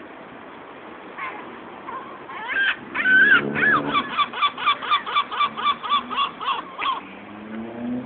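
A gull giving its long call: a few drawn-out cries, then a fast run of a dozen or so short laughing yelps at about four a second, stopping about a second before the end.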